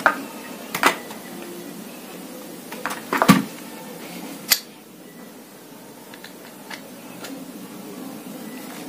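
Scattered clicks and knocks of an uklik pump air rifle's parts and tools being handled during disassembly, the loudest knock about three seconds in, with a few lighter ticks near the end.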